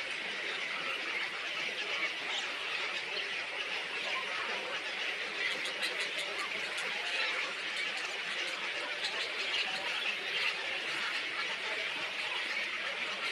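Many small birds chattering and calling at once, a continuous dense chorus with no pauses.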